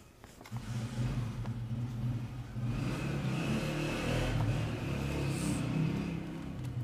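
An engine running with a low, steady hum that sets in about half a second in.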